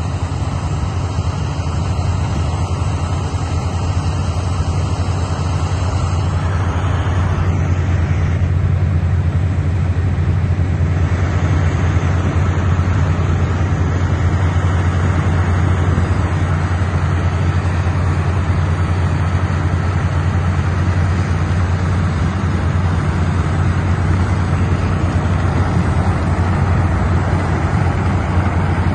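Water well blowing out a tall column of muddy water and spray, a loud steady rush with a deep rumble underneath.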